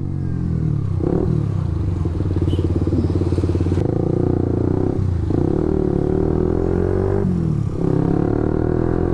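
Suzuki GSX-S150's single-cylinder engine through an aftermarket SARP exhaust fitted with a dB killer, on the move and pulling through the gears. Its pitch climbs steadily, broken three times by short dips as it shifts up. The rider still finds the note too loud even with the dB killer in.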